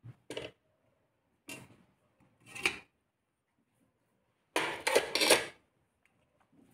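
A spoon clattering and scraping against a bowl as powders are added and a mixture of ground herbs is stirred: four short scrapes, then a longer, louder one about four and a half seconds in.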